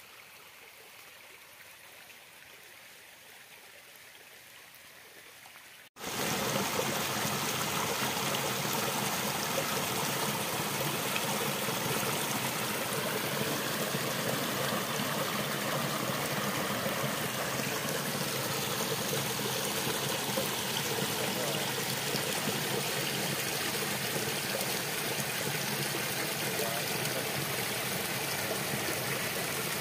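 Shallow mountain stream flowing: a faint, even flow of water at first. About six seconds in, an abrupt cut brings a much louder, steady rush of water splashing over stones and a small cascade.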